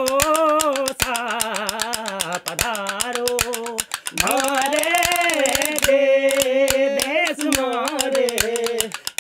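Male voice singing a long, wavering, ornamented line of a Rajasthani Manganiar folk song, with short breaths about four seconds in and near the end. Throughout it, khartal wooden clappers clack in a fast, dense run of sharp clicks.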